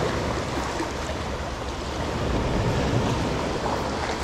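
Small sea waves washing and breaking against the rocks of a stone jetty: a steady, even rush of surf, with some wind rumble on the microphone.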